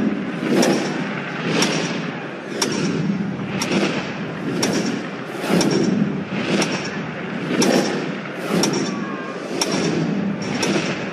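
Countdown beat: a sharp hit about once a second, each followed by a low swell, keeping time with the New Year's Eve ball-drop countdown as it ticks off the final seconds.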